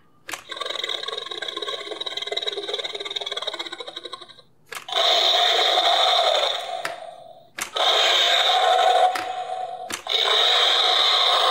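Tomy Galloping Butch T. rex toy playing dinosaur roar sound effects through its small built-in speaker, four roars in a row, each starting with a click.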